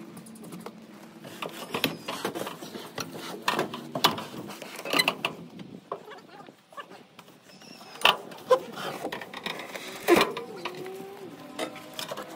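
Irregular metallic clanks and knocks from a pontoon boat's bare aluminium seat frames being pulled loose and moved about, with the loudest knocks about eight and ten seconds in.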